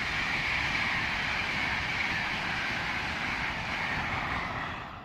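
LNER Class 800 Azuma high-speed train running through at speed, a steady rushing noise of wheels and air that fades and drops away near the end.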